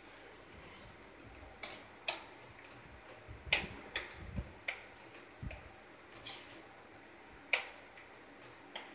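A metal spoon stirring thick pav bhaji in a metal kadai, clinking against the pan about ten times at an uneven pace.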